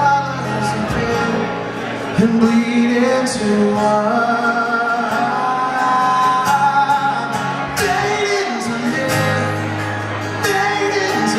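Live music: a man singing, with eyes-closed held notes, over a strummed acoustic guitar.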